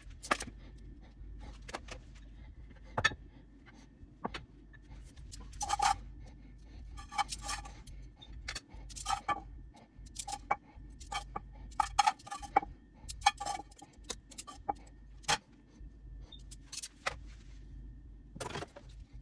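Irregular clinks, taps and scrapes of kitchenware, some with a short metallic ring, over a low steady hum.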